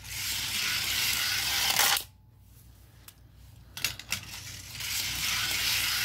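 Toy cars rolling down a plastic spiral ramp: a rolling rush of about two seconds, a few clicks, then a second run building near the end.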